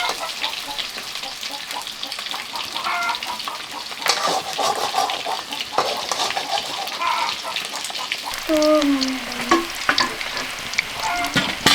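Food sizzling in hot oil in a pan, a steady hiss broken by scattered clicks and scrapes of stirring. About two-thirds of the way through, a brief falling voice-like call sounds once.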